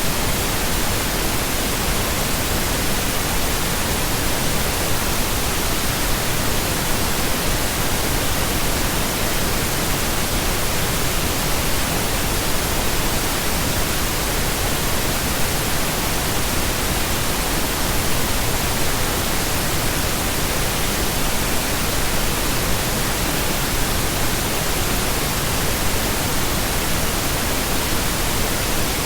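Continuous, steady pink noise: an even hiss with no changes or events.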